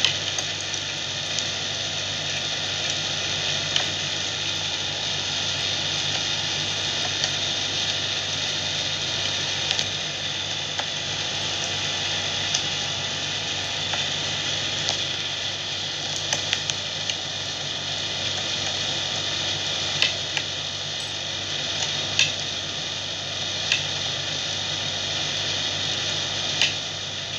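Steady hissing background noise with a low hum underneath, unbroken throughout. A few sharp clicks of metal knitting needles knocking together stand out at irregular moments as stitches are worked.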